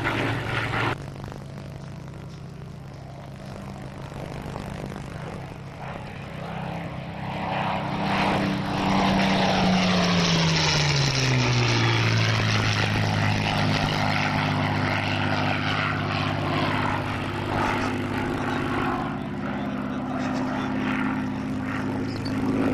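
Spitfire's Rolls-Royce Merlin V12 engine and propeller on a low, fast pass. The engine grows loud as the aircraft closes in, and its pitch drops as it sweeps past about halfway through, then it runs on more quietly as it flies away.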